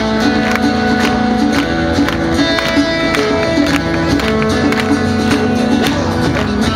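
Live band music: strummed guitar over held notes and a regular beat, played loud and steady.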